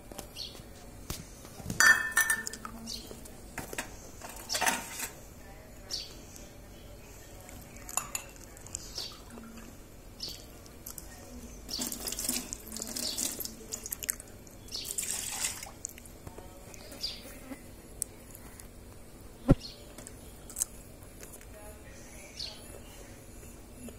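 Stainless steel cups, tumblers and bowls clinking and knocking against each other as they are washed by hand, with short spells of water running from a tap a little past the middle.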